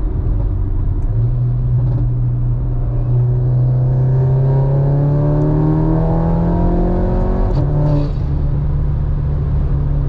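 Audi S3 8Y's turbocharged 2.0-litre four-cylinder on an E85 stage 1 tune, heard from inside the cabin, pulling hard through a gear: the engine note and intake singing rise steadily in pitch. An upshift about seven and a half seconds in drops the pitch, and the engine then runs on at a steady note.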